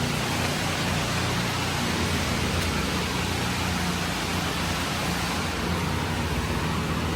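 Pressure washer spraying water, a steady hiss, over a low steady machine hum.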